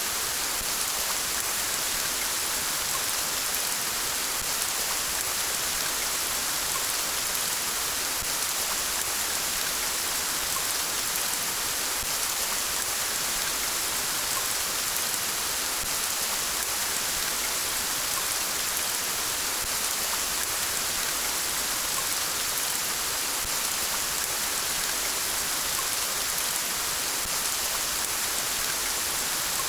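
Steady rain falling, an even hiss with no change in strength and no thunder.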